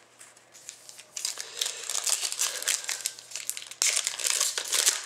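Foil wrapper of a 2010-11 Zenith hockey card pack crinkling and tearing as it is handled and opened: dense crackling starts about a second in, with a sharper, louder burst near the four-second mark.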